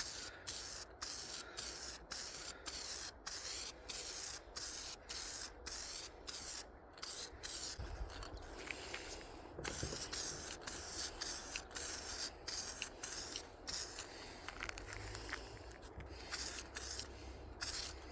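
Aerosol can of PJ1 foam filter oil spraying onto a foam chainsaw air filter. A steady hiss broken by short pauses, about two spurts a second.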